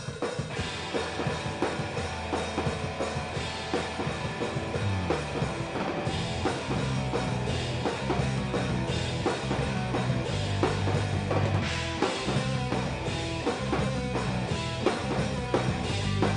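Live emo pop-punk trio playing the song's instrumental intro on drum kit, electric guitar and bass guitar. The bass slides in about five seconds in and then holds low notes under steady drumming.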